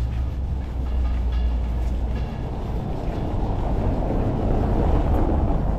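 Low, steady rumble of a passing vehicle, growing a little louder about halfway through.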